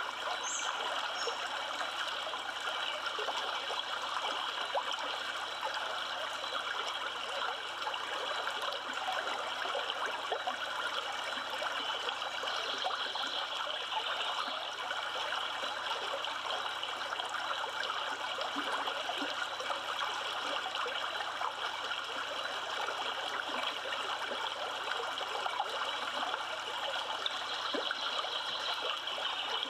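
River water running steadily, an even, unbroken rush of flowing water.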